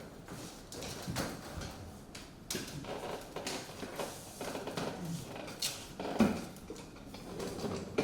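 Irregular light knocks, clicks and clatter of things being handled, with a sharper knock about six seconds in.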